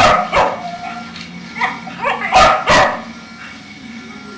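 Puppies barking and yapping as they play-fight: two sharp barks at the start, two more about two and a half seconds in, then quieter in the last second.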